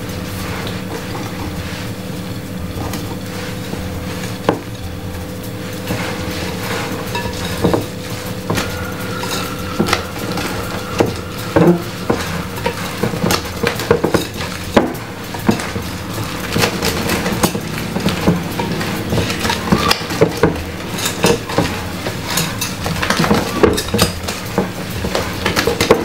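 Hand whisk stirring cake batter in a mixing bowl, clinking and scraping against the bowl. The clinks grow louder and more frequent about halfway through.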